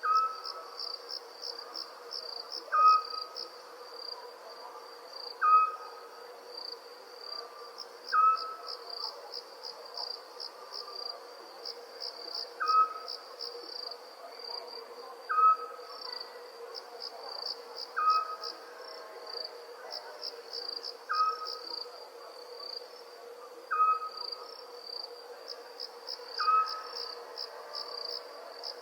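Night chorus of crickets chirping steadily, over a steady low drone. A short owl call repeats about ten times, roughly every two and a half to three seconds, and is the loudest sound.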